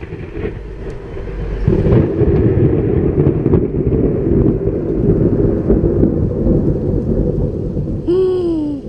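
Thunder from a lightning strike about 1 km away: a low rumble that builds over the first two seconds, then rolls loudly for about six seconds before easing off near the end.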